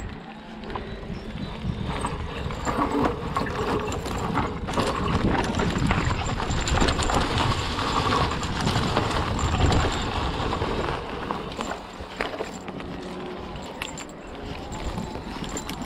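Cube electric hardtail mountain bike riding down a dry, leaf-covered trail: tyres rolling through leaves and dirt, with frequent knocks and rattles from the bike over roots and stones. It is louder in the middle stretch, where the ride is rougher.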